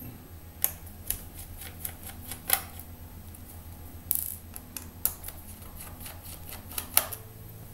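Small, irregular clicks and taps of a screwdriver working the screws out of a laptop's hard-drive bracket, with a brief scrape about four seconds in.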